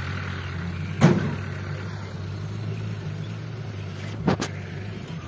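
Loaded dump truck's engine running steadily as it drives slowly over rutted dirt. There is a loud sharp bang about a second in and two quick knocks near the end.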